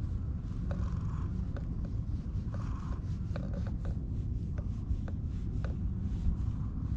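Fingers scratching and rubbing a cat's head fur close to the microphone, with scattered short clicks and scrapes over a steady low rumble.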